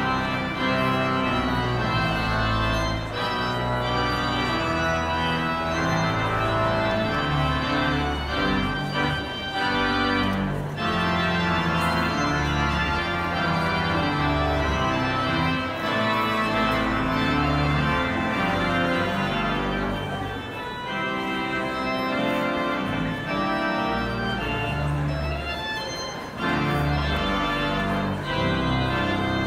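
Organ playing processional music: full, sustained chords over a bass line that moves every second or two.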